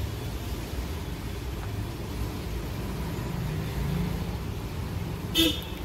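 Steady low background rumble, with one short sharp clack about five and a half seconds in.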